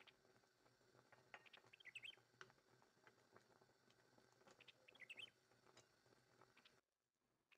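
Near silence: faint scattered ticks, with two brief clusters of short high chirps about two and five seconds in, dropping quieter still near the end.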